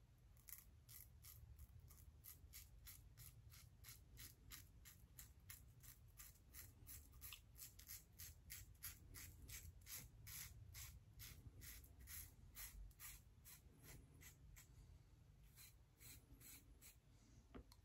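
Shave It Shadow double-edge safety razor with an RK chromium blade scraping through two and a half days of stubble, faint short strokes about two to three a second.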